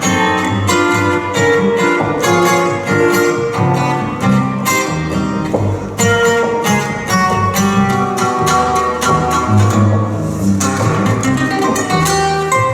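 Live acoustic jazz instrumental: a guitar plays a run of quick single notes over a walking bass line, with bowed string sounds underneath.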